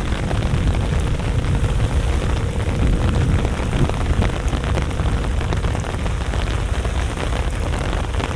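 Steady, loud outdoor ambience: a deep continuous rumble under a dense scatter of fine crackling ticks, with no single event standing out.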